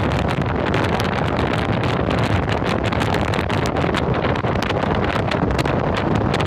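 Steady road noise of a vehicle driving, with wind on the microphone and many irregular sharp ticks throughout.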